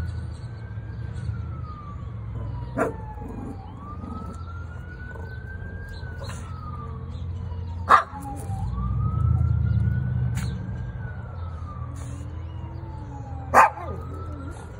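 Fire truck wail siren rising slowly and falling, one sweep about every five seconds, over a low engine rumble that swells about two-thirds of the way through. Three sharp clicks stand out as the loudest sounds.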